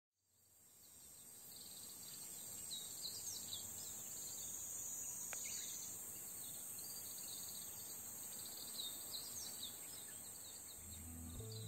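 A steady high-pitched drone of insects with many short, repeated bird chirps over it, fading in at the start. Background music comes in near the end.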